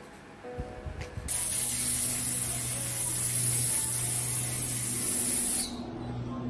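Aerosol spray can sprayed in one continuous hiss lasting about four seconds, starting and cutting off abruptly, with a low hum underneath.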